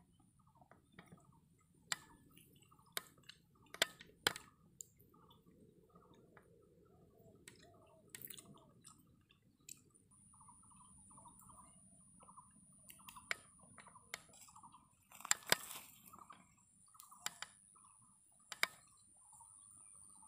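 Faint scattered clicks and crunches from a knife working through a charred, cooked fish, with a louder burst of crunching about three-quarters of the way in. Short chirping bird calls repeat in the background.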